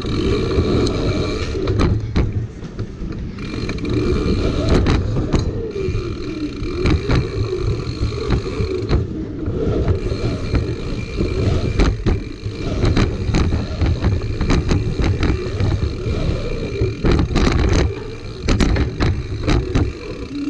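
Mountain bike tyres rumbling over plywood ramps and rollers at speed, with frequent knocks and rattles from the bike as it hits the transitions.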